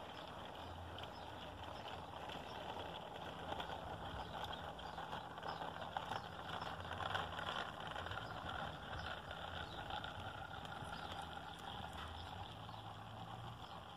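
HO-scale model freight train rolling past on outdoor garden track: a steady rolling rattle of the cars' wheels on the rails, with faint scattered clicks.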